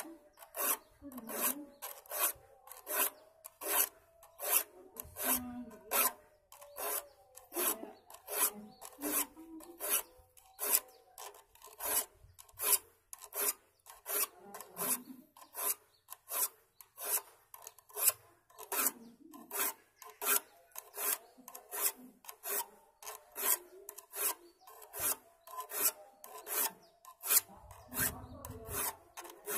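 Hand file rasping across the teeth of a hand saw, in steady, even strokes about two a second, sharpening the saw's teeth.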